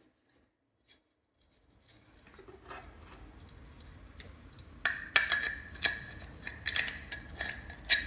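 Hand-tool work: a run of sharp clicks and snips that get denser and louder about five seconds in, over a low hum.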